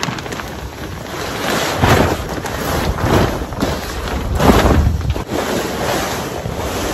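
A large, heavy billboard vinyl sheet being unfolded and flipped over on asphalt. It rustles, crinkles and flaps in several surges, loudest about four and a half seconds in.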